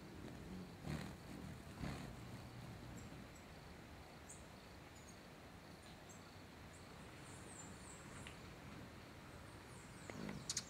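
Quiet forest ambience with faint, brief, high-pitched bird chirps and twitters scattered through. There are a couple of soft knocks in the first two seconds and a short cluster of louder clicks near the end.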